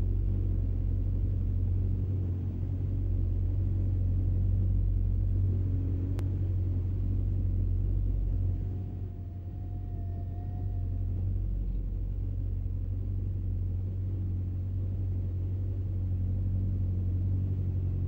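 Steady low rumble of road traffic, easing briefly about eight seconds in. A faint wavering tone comes through for a couple of seconds near the middle.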